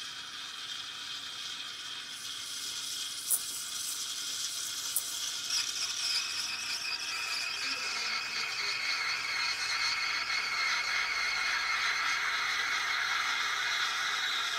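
Steam from a moka pot fitted with a steam wand hissing into milk in a stainless pitcher, frothing it for a latte. The hiss grows louder, and from about five seconds in a whistling tone slowly drops in pitch. Two short ticks come a few seconds in.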